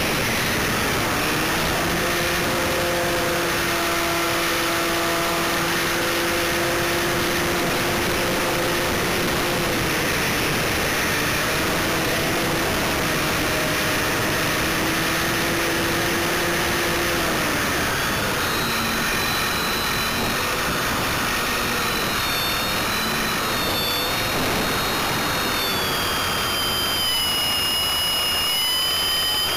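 Onboard sound of a GWS Stearman RC foam biplane in flight: heavy wind rush on the wing-mounted microphone over the drone of its electric motor and propeller. About two-thirds of the way through, the drone drops in pitch, and a high whine then wavers and rises toward the end.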